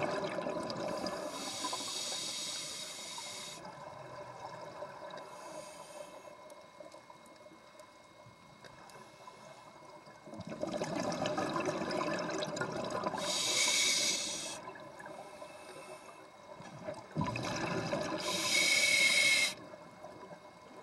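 Scuba diver breathing through a regulator underwater: a rushing draw on each inhalation, then a hissing burst of exhaust bubbles on each exhalation, repeating every several seconds.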